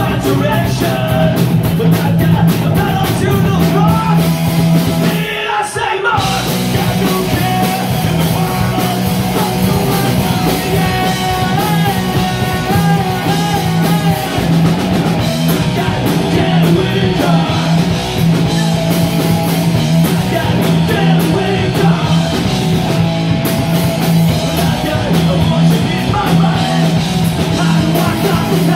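Punk rock band playing live: electric guitar, bass guitar and drum kit, with sung vocals. The band stops for a moment about five and a half seconds in, then comes straight back in.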